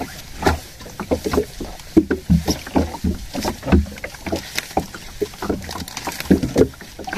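Water slapping and knocking against the hull of a small fishing boat, with irregular thumps and rubbing several times a second, while a hooked fish is hauled in on a handline.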